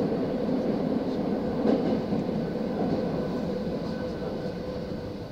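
Tokyo Metro 9000 series subway train heard from inside the car, with steady running noise of wheels on rail and motor tones. It gets gradually quieter as the train slows toward its stop.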